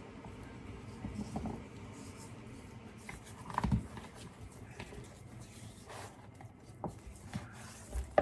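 Hands rubbing salt into a raw whole chicken: soft handling and rustling, with a few light knocks, the loudest a little over halfway through.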